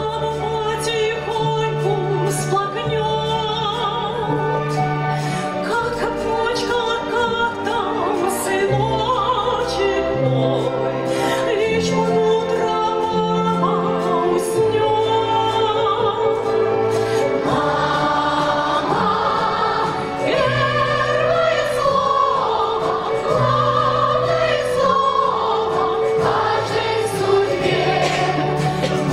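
A female solo singer with a large children's choir, over instrumental accompaniment with a held bass line; the choir sings in full by the end.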